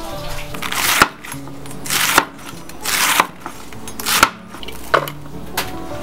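A kitchen knife slicing through a half head of cabbage on a wooden cutting board: four slow strokes about a second apart, each a rising rush of cutting noise that ends in a sharp knock on the board, then two lighter knocks near the end.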